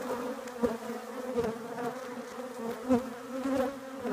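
Swarm of honeybees buzzing around an opened hive, a steady wavering hum from many wings at once. A couple of soft knocks come through, about a second and a half and three seconds in.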